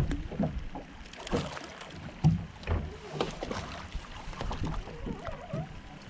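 Water lapping and slapping against the hull of a small fishing skiff, with scattered irregular knocks and a low wind rumble on the microphone.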